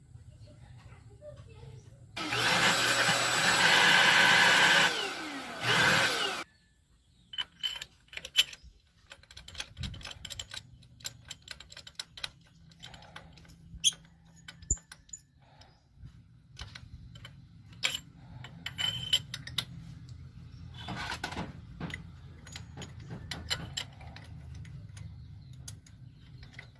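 A power tool's motor runs for about four seconds, briefly dropping and picking up again near the end. It is followed by scattered sharp clicks and taps of tools.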